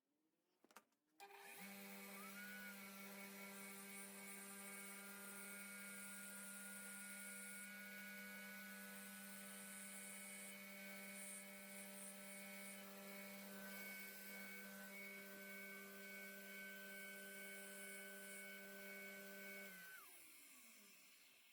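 Ryobi benchtop grinder running at steady speed, starting up about a second and a half in and spinning down with falling pitch near the end. Spells of high hiss come and go while it runs, as the metal shaft is held against it.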